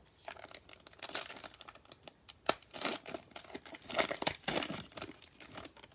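Wrapper of a Prizm basketball trading-card pack being torn open and crinkled by hand: a run of crackling rips and crinkles, with one sharp snap about two and a half seconds in.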